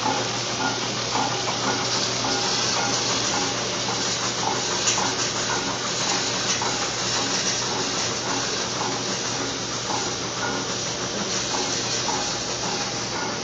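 Steady rush of running water in a concrete coffee-washing channel.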